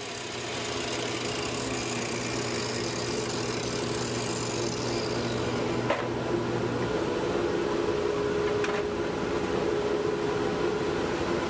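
Power-tool motor running steadily in the woodshop, building up over the first couple of seconds, with two short sharp ticks partway through.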